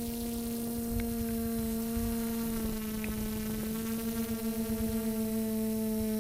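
Quadcopter's brushless motors and propellers humming steadily in flight, heard from the onboard camera. The pitch drifts slightly, and the hum pulses unevenly for a second or two past the middle.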